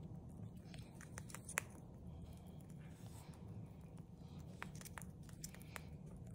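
A hamster nibbling a piece of popcorn: faint, irregular little crunches and clicks, the loudest about one and a half seconds in, over a low steady hum.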